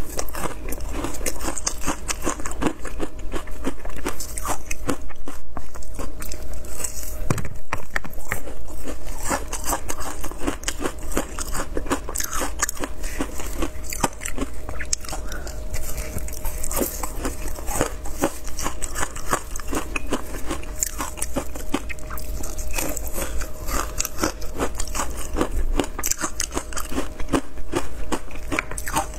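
Frozen matcha ice being bitten and chewed close to the microphone: a dense, irregular crunching and crackling of ice that goes on without a break.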